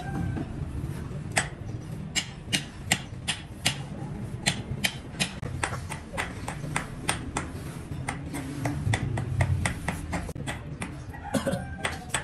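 Hammer blows in an irregular series of sharp knocks, about two to three a second, over a low steady rumble.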